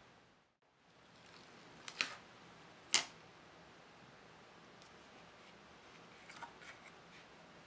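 Quiet room tone with a few sharp clicks and light taps from small wooden model-ship parts being handled and set down, the loudest two about a second apart.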